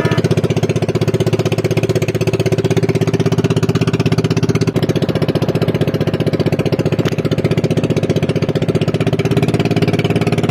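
Small petrol engine of a motorised outrigger boat running steadily while under way, a fast even chugging with no change in speed.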